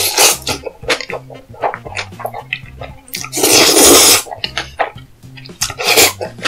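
Close-miked eating sounds: jjajangmyeon noodles slurped with pickled yellow radish (danmuji), with a long wet slurp about halfway through, shorter slurps near the start and end, and many small chewing clicks and lip smacks. Quiet background music plays underneath.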